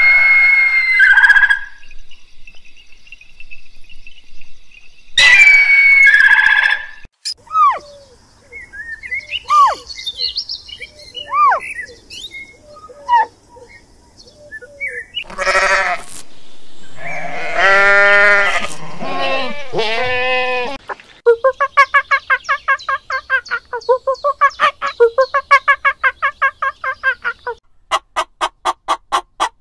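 A series of different animal calls one after another: an eagle's calls at the start, short chirping glides in the middle, then loud pitched calls that repeat rapidly from about 21 seconds in. A fast run of short clicking sounds comes near the end.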